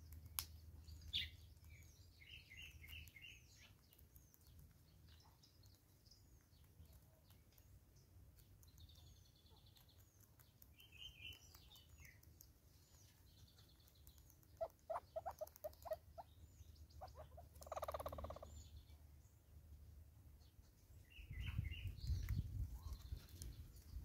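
Faint woodland birdsong: scattered high chirps and short rapid trills, with a quick run of about six low knocking notes a little past midway and a low rumble near the end.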